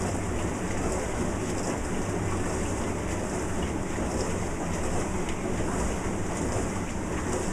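Old Zanussi DW 400 dishwasher running, a steady rush of water with a low motor hum beneath it.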